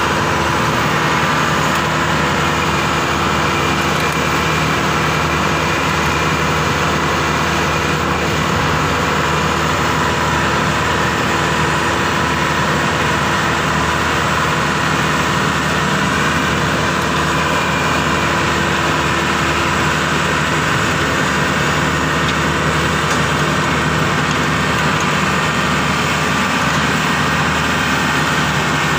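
Maxxi Bimo 102 crawler combine harvester's engine running steadily as the machine drives onto a flatbed truck's loading ramps.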